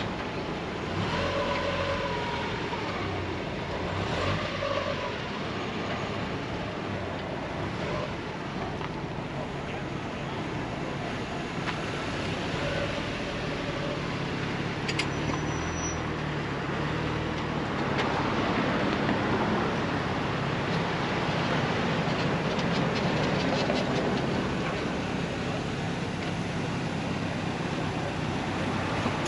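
Steady outdoor vehicle noise: car engines running with a low hum that shifts now and then, over faint background voices.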